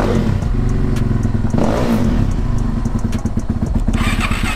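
A small engine idling steadily, with a brief surge of noise about one and a half seconds in and a brighter, higher rattle joining it near the end.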